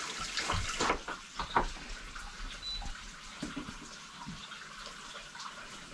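Faint steady hiss, with several short knocks and bumps in the first two seconds.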